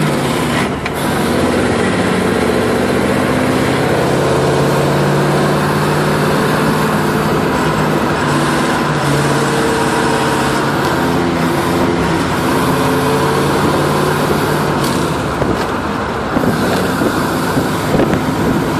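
Duesenberg straight-eight engine running as the car drives, heard from the cabin, its note holding steady for a second or two at a time before shifting, over steady road noise.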